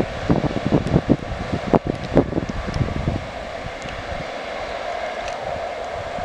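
Wind buffeting the microphone in irregular gusts for about the first three seconds, then easing, over a steady distant rumble.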